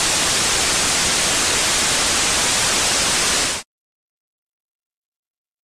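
Television static: a steady hiss of white noise that cuts off suddenly about three and a half seconds in.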